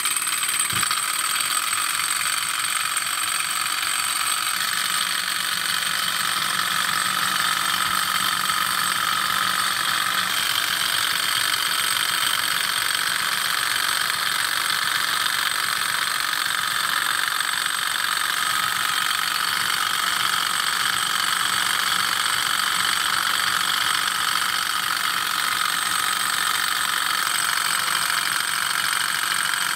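Sunnytech two-cylinder hot-air Stirling engine running at a steady speed: a fast, even mechanical whirr and rattle from its pistons, cranks and flywheels, with a thin steady high whine.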